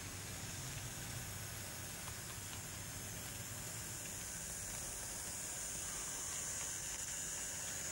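00 gauge model goods train running along the track: a faint, steady hiss over a low rumble, growing a little brighter as the vans pass close by.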